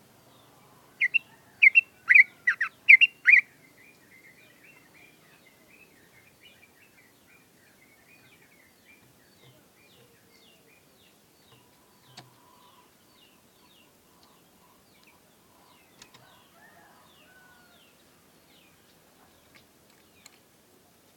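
Yellow-vented bulbul singing a loud phrase of about seven sharp notes about a second in, followed by a long run of faint, quick chirping.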